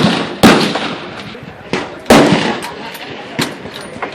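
AR-15 rifle shots: loud cracks at the start, about half a second in and about two seconds in, each with a short echoing tail, with fainter shots between them.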